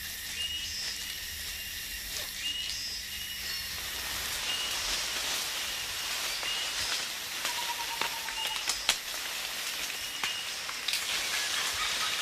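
Tropical rainforest ambience: a steady high-pitched hiss of insects that grows fuller about four seconds in. Short high chirps repeat through it, and scattered clicks can be heard.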